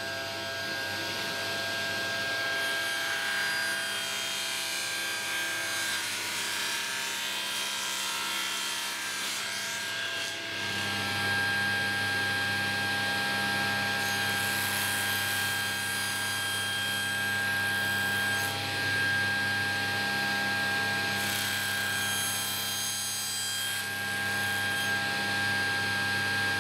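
Table saw running and ripping wood strips, a steady motor hum under the noise of the blade cutting, louder in stretches as the stock is fed through. The hum changes pitch abruptly about ten seconds in.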